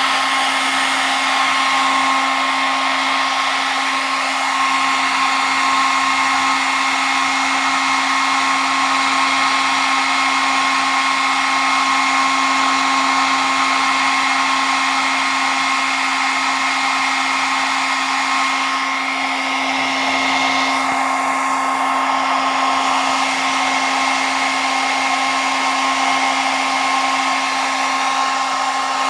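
Handheld hair dryer running steadily: a constant rush of blown air with a steady motor whine.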